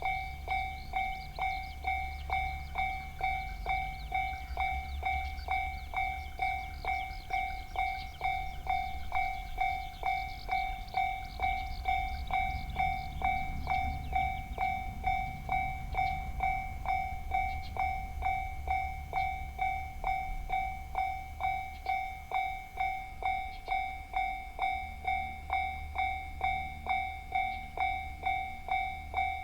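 Japanese railroad crossing alarm ringing its electronic two-tone 'kan-kan' bell, striking a little under twice a second. Beneath it the low rumble of a train swells near the middle.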